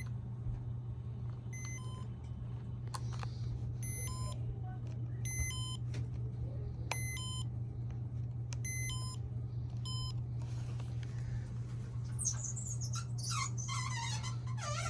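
Casablanca Venus ceiling fan's Comfort Touch control beeping about six times as its buttons are pressed, each a short electronic beep, over the fan's steady low motor hum. Some brief rustling near the end.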